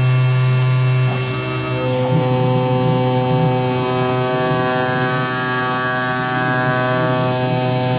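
CNC digital cutting machine running with its knife head cutting a sheet: a steady electric hum with a thin high whine above it. The pitch pattern shifts slightly about one and two seconds in as the head changes motion.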